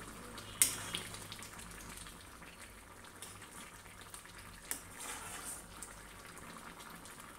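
Thick paneer and chickpea curry simmering in a kadai, nearly done, as a steel spoon stirs it. There are two sharp clinks of the spoon against the pan, about half a second in and near five seconds.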